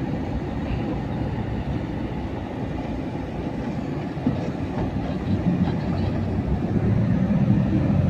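Low road and engine rumble inside the cabin of a vehicle driving along an unpaved track, growing louder over the last few seconds.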